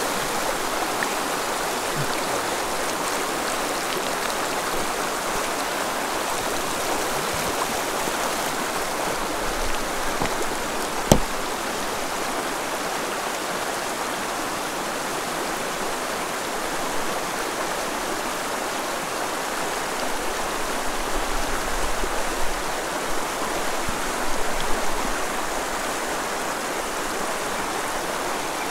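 Shallow mountain creek riffle rushing steadily over rocks and cobbles. A single sharp click about halfway through, and a few low bumps in the second half.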